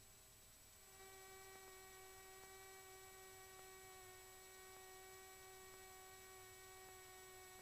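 Near silence with a faint, steady electrical hum that comes in about a second in.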